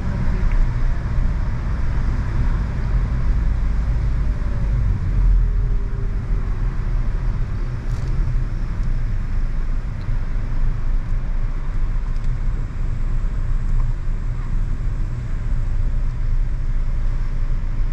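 Steady road and engine rumble inside a moving Volkswagen Jetta TSI's cabin, heaviest in the low end, with tyre noise.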